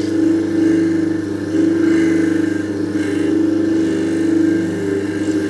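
Lapidary polishing machine running steadily, its motor humming low while a cabochon is pressed against the spinning polishing disc. The level rises and falls a little.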